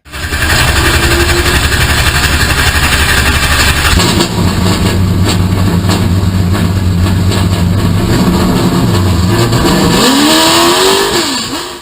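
Late model stock car engines running loud, dense and rumbling at first, then steadier, with the pitch rising and falling near the end as an engine revs.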